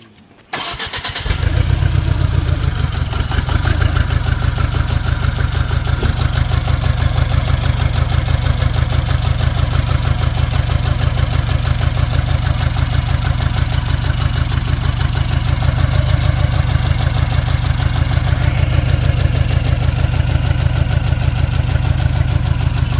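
Tata Zest car engine starting about a second in, then running at idle with a steady, regular pulsing. The engine is misfiring on cylinders 3 and 4, which the mechanic puts down to a cylinder head fault leaving too little compression.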